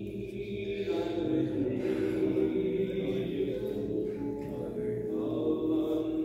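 Sung prayer: voices chanting softly in long held notes.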